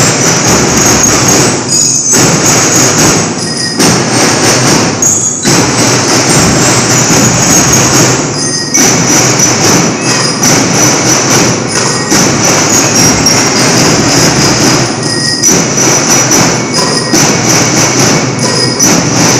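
A school drum and lyre band playing: metal bell lyres ring out a tune over drums, loud throughout.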